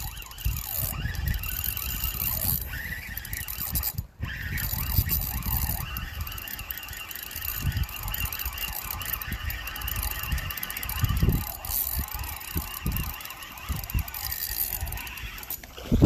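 Wind buffeting the phone's microphone in gusts, with a faint, wavering high squeal running underneath.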